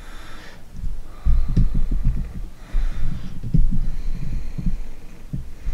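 A man's heavy breathing close to the microphone: a breath about every second and a half, with low thumps and rumbles of air on the mic.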